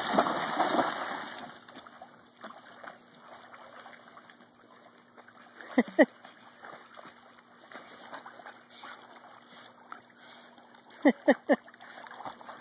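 Dogs splashing into a swimming pool at the start, followed by quieter water sounds as one swims. A squeaky rubber football held in the dog's mouth squeaks twice about halfway through and three times in quick succession near the end.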